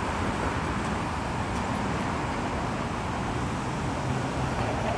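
Steady city traffic noise from the surrounding streets.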